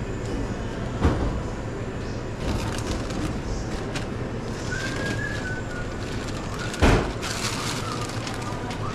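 Fast-food counter ambience: a steady low equipment hum, with two sharp knocks, one about a second in and a louder one near seven seconds. A takeout bag rustles as the order is packed, and a faint short high squeak-like tone comes twice.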